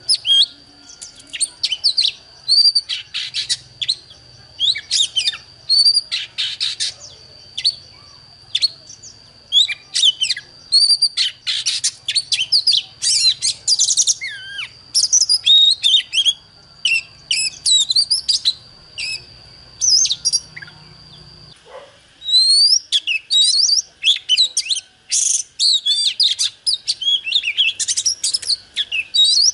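Oriental magpie-robin singing a long, loud run of varied short phrases: clear whistles, quick rising and falling slurs and chattering trills, with brief gaps between them.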